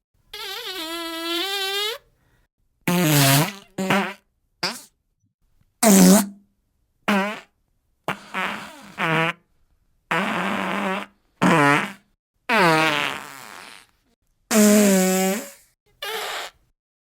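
A series of about thirteen separate fart sound effects of the diarrhea kind, one after another with short silences between. The first is the longest, about two seconds of wavering, buzzing pitch; the rest are short blasts and splutters.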